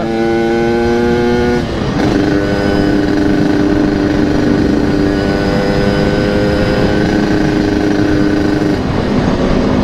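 Yamaha RX-King single-cylinder two-stroke running through a local aftermarket exhaust while riding. The revs climb a little, drop at a gear change about two seconds in, then hold steady at cruising speed before easing near the end.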